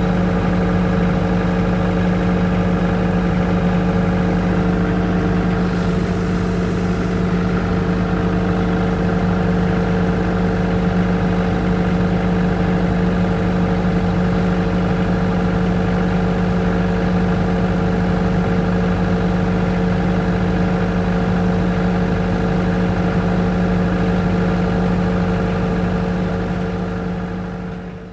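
Engine-driven generator of a nebuta festival float running steadily at constant speed, a continuous even engine hum. The sound fades out near the end.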